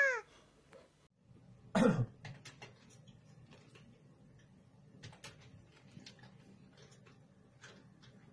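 A cat's loud yowl, falling in pitch and cutting off just after the start. About two seconds in comes one short, sharp sound, then faint scattered ticks and scratches.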